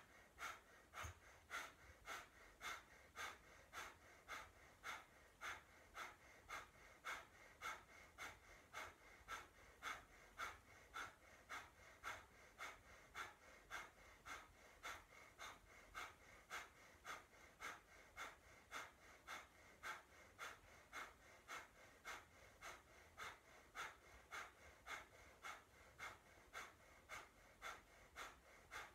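Breath of fire, the Kundalini yoga breathing exercise: quick, even puffs of breath through the nose at about two a second, keeping a steady rhythm.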